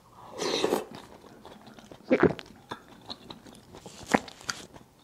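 Close-miked eating sounds of a mouthful taken from a spoon: a soft swell as it goes in, then chewing with a few sharp mouth smacks about two and four seconds in.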